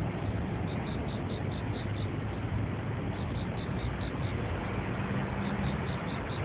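Steady outdoor background noise with a low hum, and a faint high pulsing about four times a second that comes and goes in short runs.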